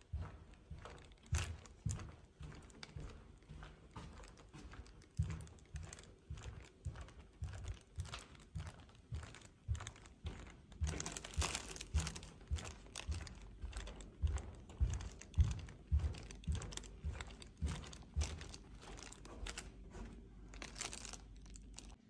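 Footsteps walking along a carpeted corridor, about two steps a second, each with a soft thump and a crinkly rustle of something carried, which briefly gets louder a little over ten seconds in.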